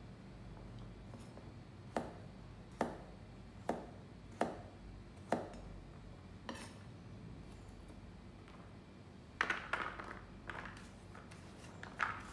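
Kitchen knife chopping carrot on a wooden cutting board: six separate chops a little under a second apart. Near the end comes a quicker clatter of knocks and scrapes as the diced carrot is gathered and dropped into a stainless steel tray.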